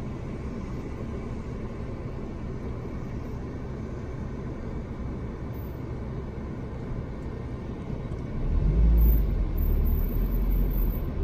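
Steady low rumble of a car idling, heard inside its cabin. About eight and a half seconds in a much louder, deeper rumble starts as the car begins to pull away.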